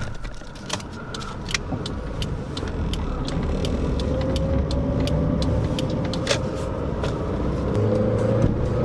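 Toyota Starlet's engine pulling away and accelerating: a low running rumble that grows louder, its note slowly rising from about halfway, with scattered small clicks.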